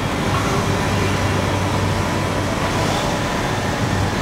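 Steady machine-shop noise: heavy machinery running with a low hum.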